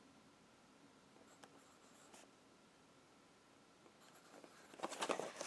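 Pencil writing on paper: faint scratching strokes as letters are written out, growing louder and denser near the end.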